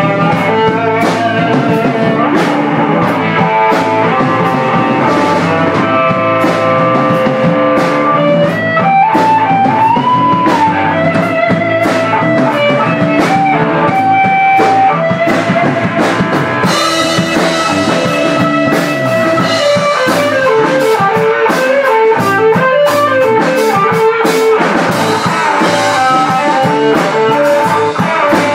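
Live rock band playing: electric guitar and bass over a drum kit.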